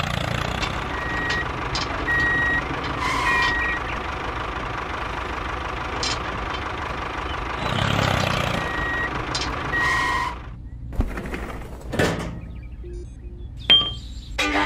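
Truck engine running with a reversing alarm beeping at intervals; the engine noise cuts off suddenly about ten seconds in. A few sharp clicks follow, plastic toy parts being handled.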